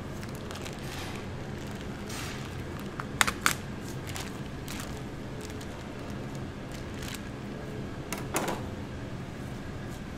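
Clear plastic bag around a raw pork shoulder crinkling and rustling as it is cut open with a knife and peeled off, with two sharp clicks about three seconds in and a louder rustle after about eight seconds. A steady low hum runs underneath.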